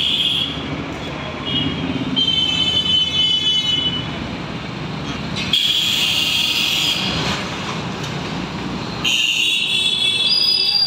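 Road traffic at a busy junction: vehicles running past, with about four vehicle horn honks of a second or two each.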